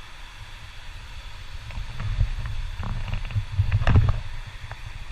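Low rumble of a trail motorcycle ride with wind on the microphone, swelling about two seconds in, with a few sharp knocks from the rough track, the loudest near the four-second mark.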